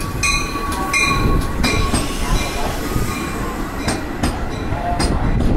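Metra bilevel commuter cars rolling past close by, with a steady low rumble of wheels on rail. A thin wheel squeal lasts through the first half, repeated ringing strikes fade out in the first two seconds, and a few sharp clacks come over rail joints about four to five seconds in.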